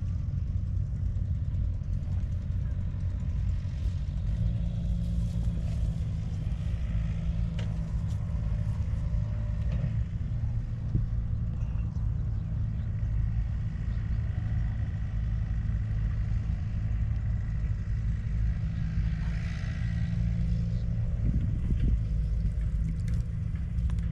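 Steady low drone of an engine running at constant speed, growing a little fuller about four seconds in.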